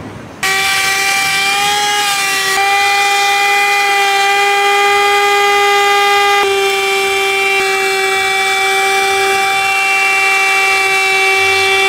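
Handheld car vacuum switched on about half a second in, its small motor running with a loud, steady high whine while it vacuums the floor carpet. The pitch shifts slightly a couple of times.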